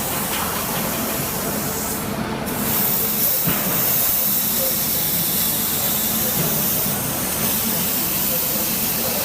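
Plasma torch of a CNC plasma cutting table cutting metal: a steady, loud hiss with a low hum under it. The high part of the hiss drops away briefly about two seconds in.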